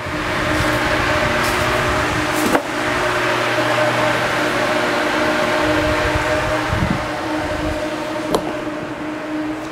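Tornado chamber's exhaust fan running steadily, a rush of air with a steady hum, drawing the updraft that spins up the vortex. Two brief clicks, one about two and a half seconds in and one near the end.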